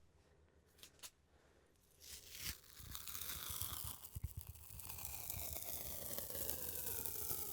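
Tape being pulled out in one long continuous stretch, a tearing sound whose pitch slowly falls. It starts about two seconds in, after a near-silent start with a couple of faint clicks.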